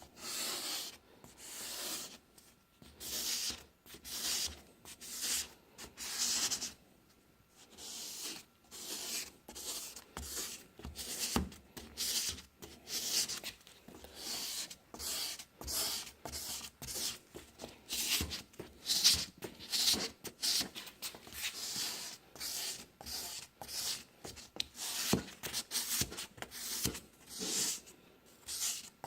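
Abrasive pad rubbed by hand straight back and forth across a plastic car headlight lens in repeated strokes. The strokes are slower at first, pause briefly about seven seconds in, then come quicker.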